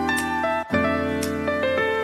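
Background instrumental music of held chords, which stop briefly about two-thirds of a second in and start again on a new chord.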